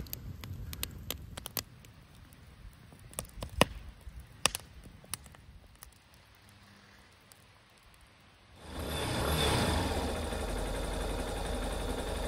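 Wood fire crackling, with scattered sharp pops and snaps. About eight and a half seconds in, a steady, much louder rushing noise takes over.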